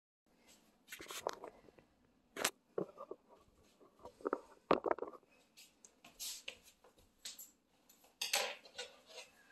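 Handling noise: scattered light clicks, taps and rustles of small objects being moved about, with a few sharper knocks about two and a half and five seconds in.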